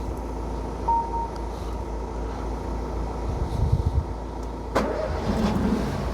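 Peugeot 5008 being started on a jump pack after its battery went flat: a short dashboard chime about a second in, then the starter cranks and the engine catches near the end, settling into a run.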